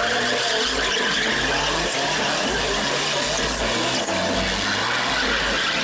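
Car tyres skidding and squealing in a stunt manoeuvre, over loud music with a repeating bass line.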